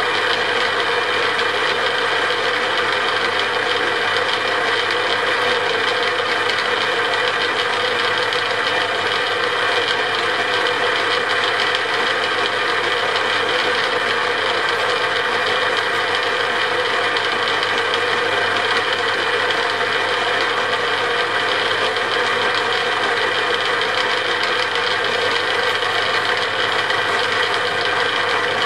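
Metal lathe running steadily, its headstock gears giving a constant rattling whir, while a centre drill works at the end of the spinning drill chuck arbour.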